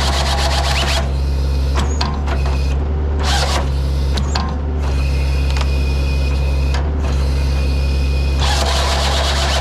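Heavy diesel machinery running steadily, driving a skid-steer-mounted Halverson 140B firewood processor. Bursts of louder mechanical noise come at the start and again near the end, with scattered clicks and knocks between them.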